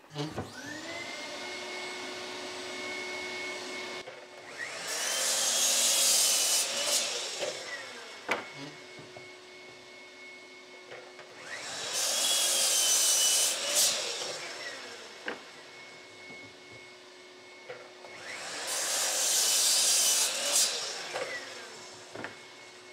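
Sliding compound mitre saw making three crosscuts through timber, about six seconds apart. Each time the motor spins up, the blade runs through the wood for a couple of seconds, then the motor winds down. A shop vacuum dust extractor hums steadily in between.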